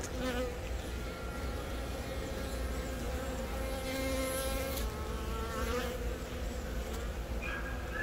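Honeybees buzzing on a brood comb frame lifted out of the hive: a steady hum with several overlapping pitches.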